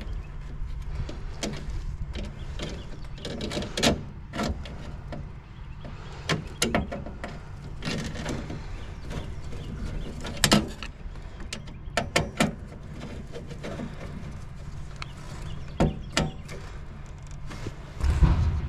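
Irregular clicks, taps and knocks of hand work on a furnace, mounting a replacement control board, over a steady low hum. A heavier thump comes near the end.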